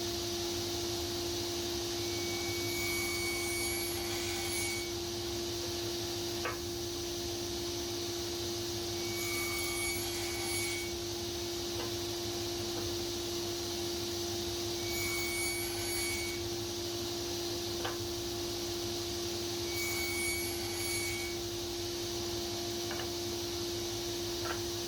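Woodworking power tool running continuously on timber: a steady motor hum and hiss, with a higher whine that comes in for a second or two about every six seconds as the wood is worked in repeated passes.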